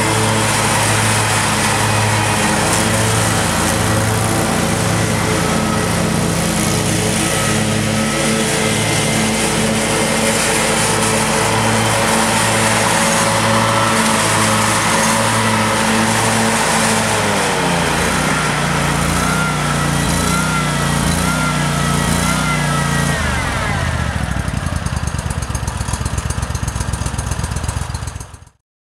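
Engine of a Gravely 260 Z zero-turn mower running steadily as the mower drives. Its pitch drops about two-thirds of the way in, then drops again to a low, pulsing idle.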